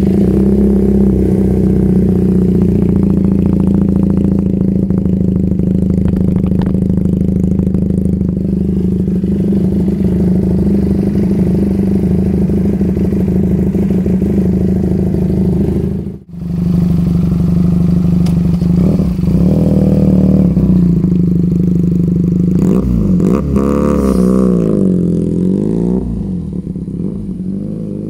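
Benelli 302R's 300 cc parallel-twin engine running through a straight U-pipe and SC Project carbon slip-on muffler, idling with a loud, steady note. In the last few seconds the pitch rises and falls several times as the engine is revved.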